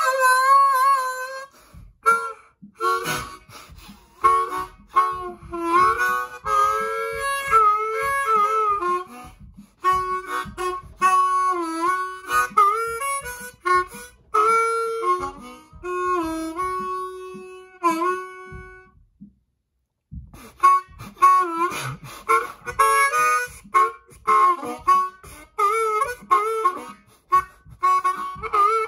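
A harmonica played solo, cupped in both hands: a slow tune of held and bent notes and chords, broken by a few short pauses, the longest about two-thirds of the way through.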